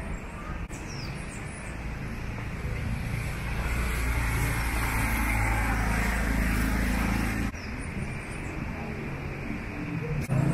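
Street traffic, with a vehicle's engine rumbling close by that grows louder and then drops away suddenly about seven seconds in.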